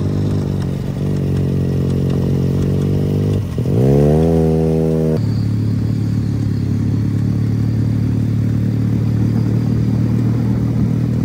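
Motorcycle engine running at steady cruising revs. About three and a half seconds in the note dips briefly and then climbs quickly as the throttle opens, and about five seconds in it changes abruptly to another steady engine note.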